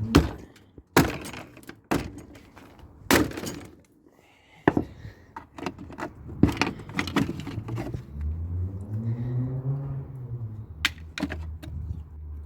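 Sharp knocks and metallic clatter from a scrap dishwasher being broken apart by hand, about a dozen strikes in the first seven seconds. From about eight seconds a low engine-like hum rises and falls in pitch and keeps running.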